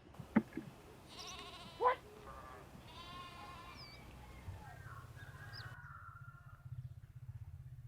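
Goat bleating twice with a wavering call, after two sharp knocks in the first two seconds; a low steady hum comes in about halfway through.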